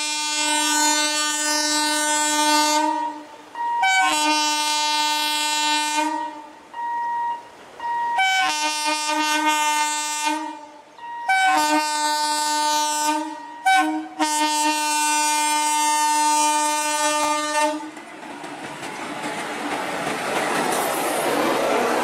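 Indian Railways express locomotive's horn sounding a series of about five long blasts with short toots between them as the train approaches. From about eighteen seconds in the horn stops and the coaches rush past close by, wheels clattering on the rails.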